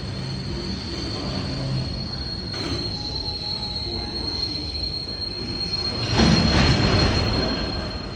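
Freight train hauled by an EH500 electric locomotive rolling past, its wheels giving a steady high squeal over the rumble of the wagons. About six seconds in, a louder rush of noise swells for a second or so, then eases off.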